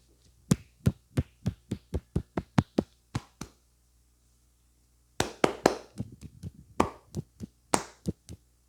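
Hand strikes of a percussion head massage: about a dozen sharp slaps at roughly four a second, then a pause of nearly two seconds and a faster, denser run of hollow slaps.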